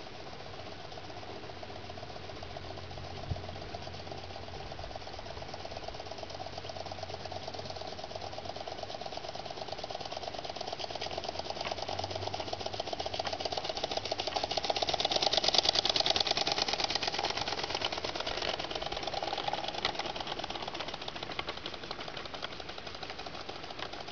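Small gas-fired 16mm-scale live steam locomotive running on a garden railway, its rapid chuffing growing louder to a peak about two-thirds of the way through and then fading. A single sharp click about three seconds in.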